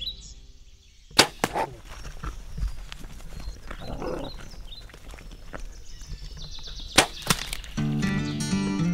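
A bow being shot: sharp snaps of the released string, one about a second in and a pair of cracks about seven seconds in, with light rustling between. Music starts near the end.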